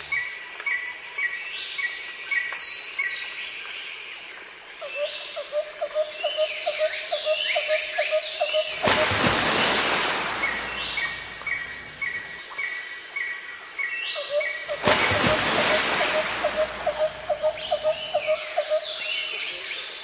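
Several birds calling: a short note repeated about twice a second, quick rising and falling chirps, and a lower pulsing trill. Two surges of rushing noise come about halfway through and again about three-quarters through.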